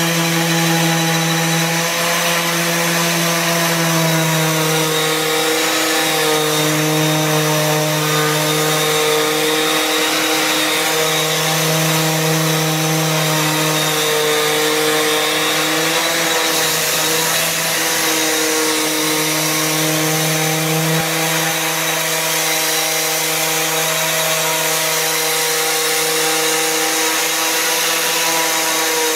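Parkside random orbital sander running continuously while it sands raw pine with a 40-grit hook-and-loop disc: a steady motor hum over the rasp of the abrasive, its pitch wavering slightly as it works.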